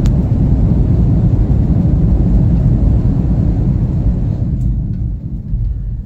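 Loud, steady low rumble heard inside an airliner cabin at touchdown and during the landing roll, easing off in the last second or so.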